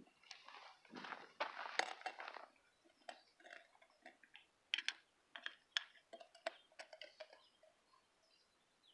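Metal spoon scraping and clinking against a glass mason jar as sticky honey is scooped out: a scraping stretch about a second in, then scattered light clicks and taps.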